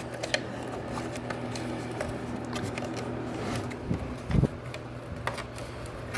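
Scattered clicks and knocks of hands working a worn belt out of a vacuum cleaner's plastic brush-roll housing, with a louder thump about four seconds in, over a steady low hum.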